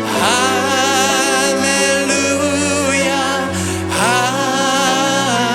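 Worship song with a lead singer holding long notes with vibrato over steady instrumental accompaniment; a new sung phrase begins about four seconds in.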